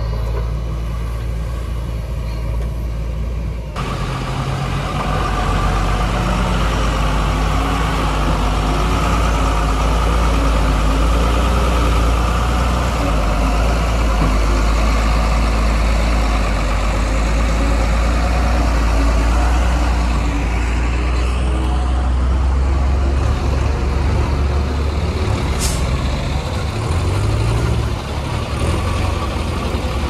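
Heavy diesel engine of a tipper truck running steadily, louder from about four seconds in. A short air-brake hiss comes about three-quarters of the way through.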